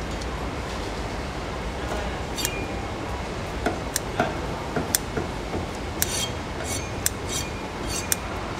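Kitchen scissors snipping through a raw mantis shrimp's shell: a string of sharp clicks, some close together, over steady background noise.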